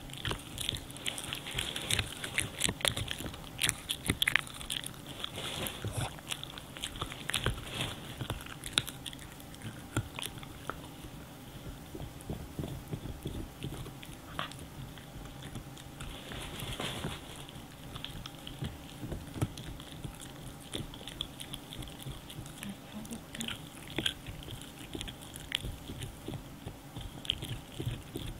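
French bulldog gnawing and chewing a hard dried cow-stick chew: irregular crunching and cracking bites, thickest over the first several seconds and sparser later.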